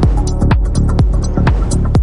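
Electronic background music with a steady kick-drum beat, hi-hat ticks and sustained synth notes.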